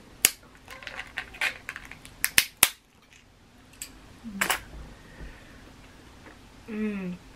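Snow crab claw shells cracking in a metal crab cracker, with the tool's hinged arms clicking: several sharp cracks close together in the first three seconds, then one more about halfway through.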